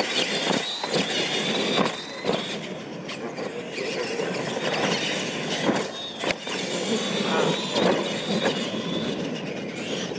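Two radio-controlled monster trucks racing flat out over dirt ramps: their electric motors and geartrains whine high and steady, dipping briefly as they leave the ground, with tyres churning dirt and sharp knocks as they land jumps.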